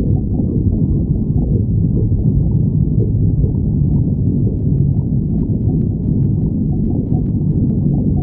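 A person's stomach growling: a continuous low rumble. Faint small ticks come through in the second half.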